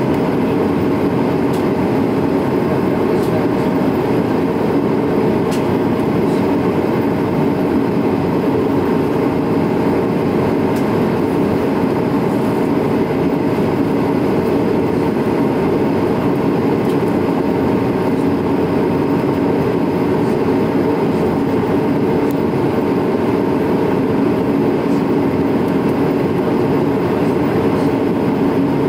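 Steady jet-engine and airflow noise heard from inside an airliner's cabin during the climb, a constant low rush with a steady hum tone running through it.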